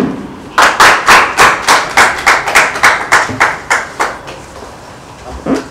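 Hands clapping in applause in a steady, even rhythm, about four sharp claps a second, for about three and a half seconds before stopping.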